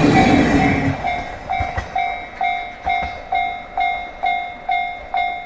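A railway level-crossing warning bell dings steadily, a little over two strikes a second. A passing train's running noise is loud for about the first second, then drops away abruptly, leaving the bell alone.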